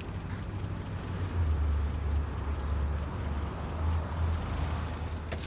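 An engine running with a steady low hum that gets louder about a second and a half in, ending with a sharp knock.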